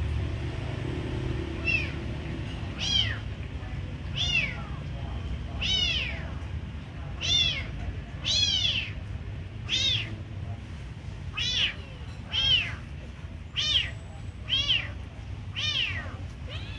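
Kitten meowing over and over, about a dozen short high calls that rise and fall in pitch, roughly one a second, beginning a couple of seconds in, over a steady low background rumble.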